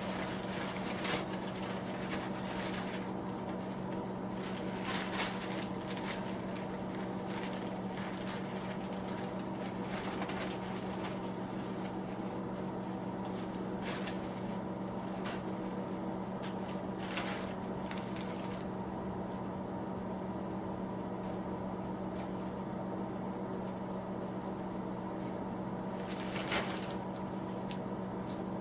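Small heater running with a steady electric hum. Scattered light clicks and knocks come through much of the first two-thirds and once more near the end.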